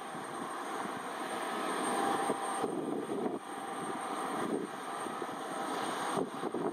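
Embraer ERJ175 airliner's GE CF34 turbofan engines running steadily with a high whine while the jet is pushed back by a tug.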